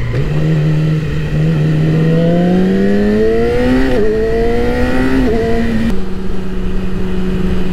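Yamaha R6 sport bike's inline-four engine accelerating, its pitch climbing for about four seconds, dipping briefly at an upshift and climbing again. It then eases off to a steady cruise about six seconds in, with wind rushing past.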